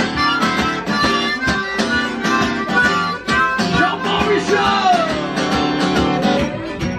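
Music: acoustic guitar with a lead melody whose notes bend and glide in pitch.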